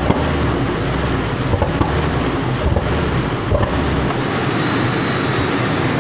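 1993 Lincoln Town Car's 4.6-litre V8 running with the hood open while the throttle is worked by hand; its deep rumble drops away about four seconds in. The engine has a hesitation and miss, later traced to bad spark plugs and a dirty airflow sensor.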